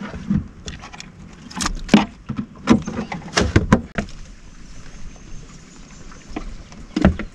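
Knocks and clatter of gear being handled in a small fishing boat, with a lid bumped and closed: a quick run of sharp knocks over the first four seconds, then quieter, with one more knock near the end.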